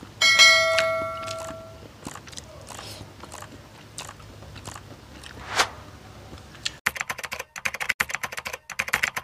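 A bright chime with several ringing tones about a quarter second in, then a metal fork clinking and scraping on a ceramic plate with chewing, one louder scrape about five and a half seconds in. A rhythmic pulsing sound starts about seven seconds in.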